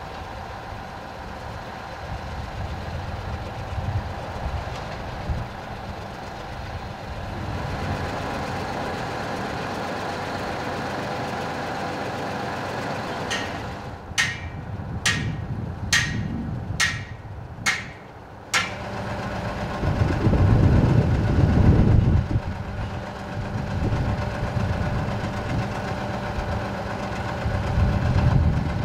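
Heavy trucks and a truck crane running at idle on a road-works site, a steady engine hum. About halfway through come six sharp knocks, roughly a second apart, and a few seconds later a louder low engine rumble.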